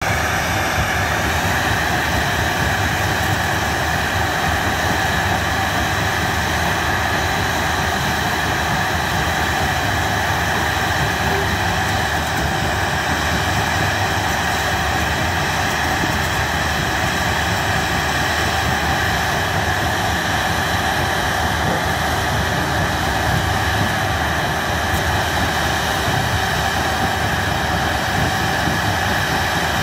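Rebel Crusher mobile jaw crusher running steadily as it crushes concrete blocks: a continuous heavy mechanical din with a steady engine drone.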